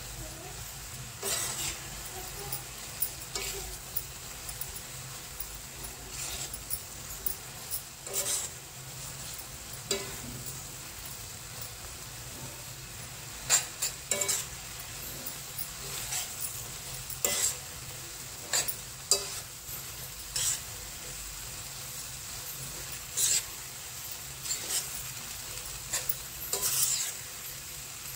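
Spatula stirring Maggi noodles and vegetables in a pan, with irregular scrapes and clicks against the pan over a steady sizzle as the noodles cook.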